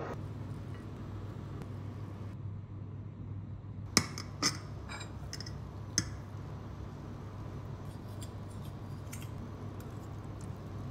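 Three sharp clinks of a metal fork against a ceramic pasta bowl, the loudest about four seconds in, the others half a second and two seconds later, over a low steady hum.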